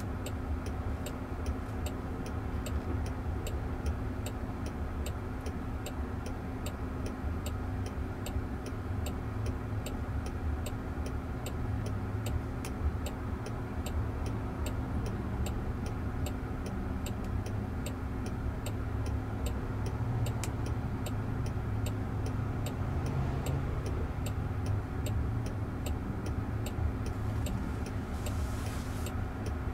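Turn-signal indicator of a Waymo Jaguar I-Pace ticking steadily, about one and a half clicks a second, over a low steady cabin and traffic hum while the car waits stopped at a red light.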